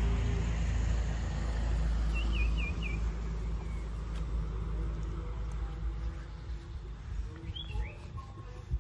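Low motor rumble slowly fading away, with a small bird chirping a quick run of four notes about two seconds in and a few more chirps near the end.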